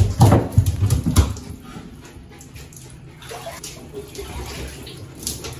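A wet Shiba Inu puppy jumping into an empty bathtub: loud thuds and scrabbling of its paws on the tub in the first second or so, then fainter scuffing.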